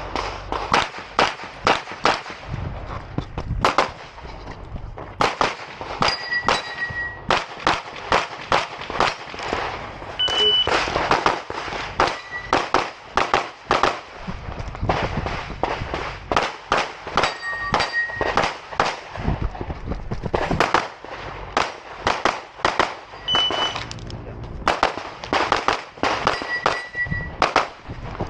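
Rapid pistol fire from an Open-division competition handgun: quick pairs and strings of shots with short pauses between them. Several times a hit steel target rings with a brief clear tone.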